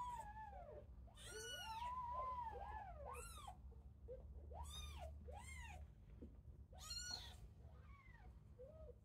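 Very young kittens, eyes just beginning to open, mewing over and over: over a dozen short, high, rising-and-falling squeaks, some overlapping. A steady low hum runs underneath.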